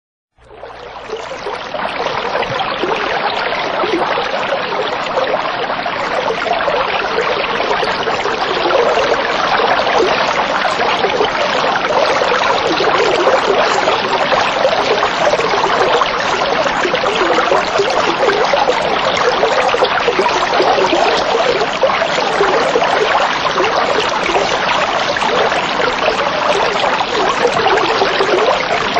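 Steady sound of running, trickling water, fading in over the first second and then holding even.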